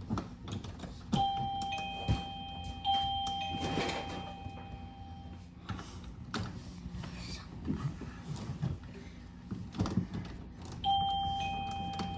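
Plug-in wireless door-chime receiver playing an electronic ding-dong chime, set off by its door-sensor transmitter as the door opens. The chime sounds about a second in and again near the end, with scattered clicks and knocks in between.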